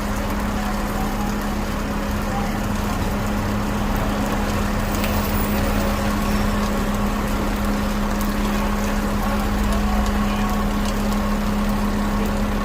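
Steady mechanical hum with a constant low tone, running evenly, with a few faint ticks over it.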